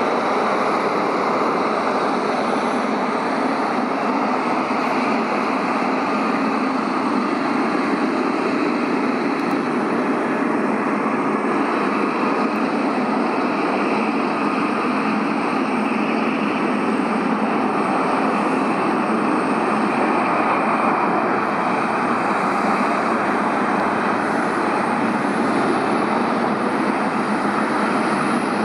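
Steady, unchanging roar of jet aircraft engine noise at an airport, with no build-up or fade.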